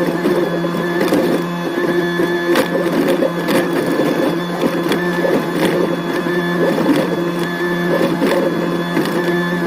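Excavator engine and hydraulics running steadily, with a few sharp knocks scattered through.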